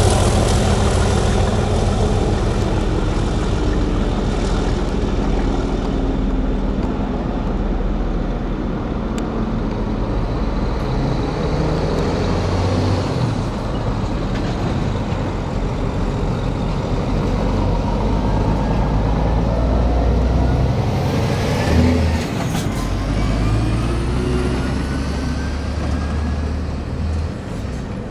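Diesel engine note of a Class 37 locomotive with its English Electric V12 as the train draws away. The low steady hum fades slowly.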